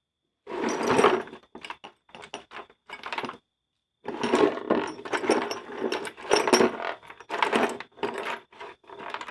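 Small metal engine parts clinking and rattling as they are handled, in irregular bursts with a short pause about three and a half seconds in.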